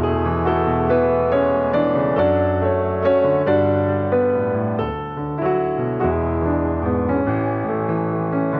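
Background music: soft piano playing a slow, steady run of notes.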